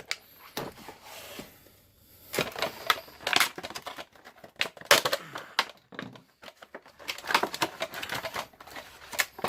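Plastic drill bit case being worked out of its packaging, with irregular clicks, knocks and rustling of plastic and cardboard.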